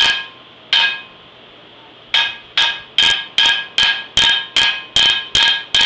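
Hand hammer striking a rivet on a steel frying pan over the anvil, each blow ringing. Two separate blows, then a steady run of about ten blows, two to three a second.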